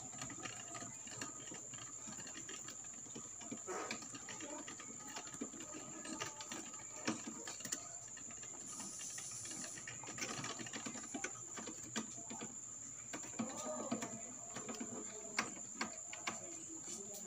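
A rabbit chewing dry pellets: quick, irregular crunching clicks. A steady high-pitched whine runs underneath.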